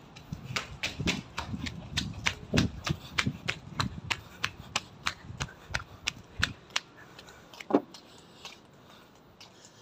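Quick running footsteps on concrete pavement, sharp slaps about three to four a second with low thumps from the jostled handheld phone. They stop after about six and a half seconds, followed by one louder click near the end.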